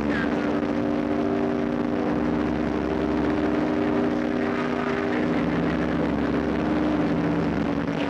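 SS Leviathan's ship whistle sounding one long, steady blast of several pitches at once. About five seconds in the chord shifts a little as one note drops out and a lower one sounds.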